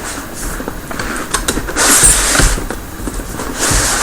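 Cardboard keyboard box being opened by hand: cardboard rubbing and scraping with a few light clicks and knocks, the loudest scrape about two seconds in.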